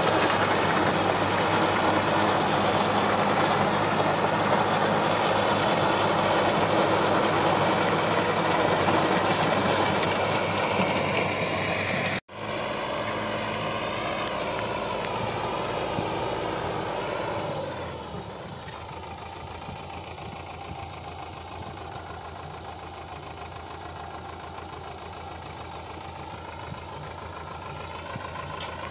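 Sonalika DI 750 tractor's diesel engine and rotavator working the soil, a loud steady churning run. After a sudden break about twelve seconds in, the sound comes back quieter, and from about eighteen seconds the engine idles steadily with the tractor standing.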